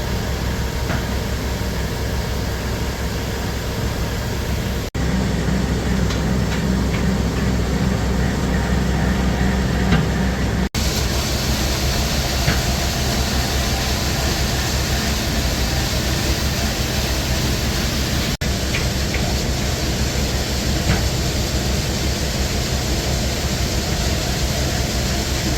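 Diesel engine running steadily under a constant rushing noise, a low, even drone that carries on across three abrupt edit cuts.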